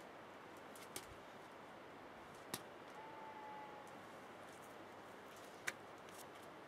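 Near-silent background hiss broken by three sharp, short clicks, spread a second or more apart. A faint, thin, steady whistle-like tone lasts under a second around the middle.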